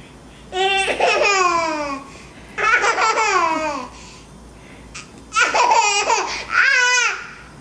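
A small child's high-pitched squealing, laughing cries: three long calls, each falling in pitch, the last one wavering up and down.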